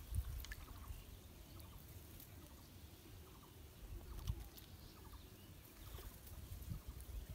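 Quiet pond-side ambience: low wind rumble on the microphone, faint small handling sounds as fishing line and a hooked catfish are handled, and a few faint short calls from distant fowl.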